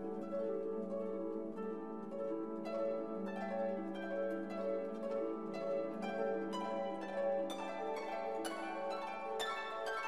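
Instrumental background music: plucked, harp-like notes over a held low tone, the plucking growing busier in the second half.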